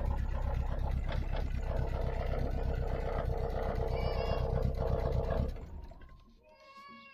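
Volkswagen Golf Mk1 engine idling steadily with an even pulse, now starting and running after a crank-no-start fault was fixed, then shutting off and dying away about five and a half seconds in. A cat meows near the end.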